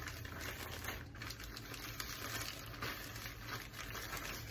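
Faint, scattered small clicks and handling noises over a steady low hum.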